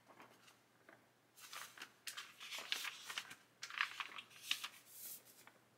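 Paper rustling in several short bursts as a kit instruction sheet is handled.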